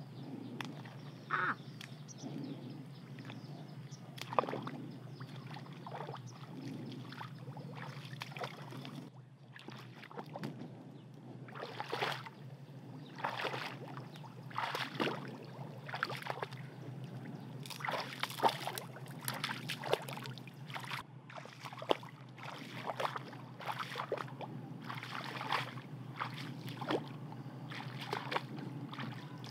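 Bare feet squelching through mud, then wading through shallow muddy water, sloshing and splashing with each step. The splashes come irregularly and grow louder and more frequent about halfway through.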